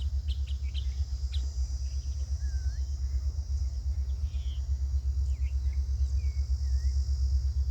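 A steady high-pitched insect drone with scattered short bird chirps, over a constant low rumble that pulses unevenly.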